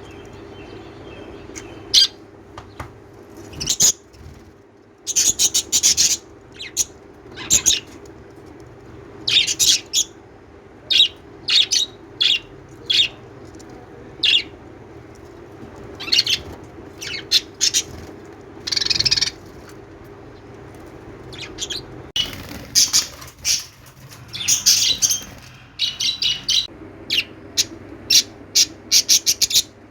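Small pet parrots chirping: many short, sharp, high calls, some single and some in quick clusters, busiest near the end, over a faint steady low hum.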